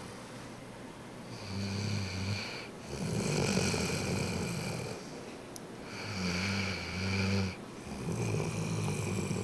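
A sleeping Rhodesian Ridgeback dog snoring: two slow breaths, each a low buzzing snore followed by a longer, hissier breath.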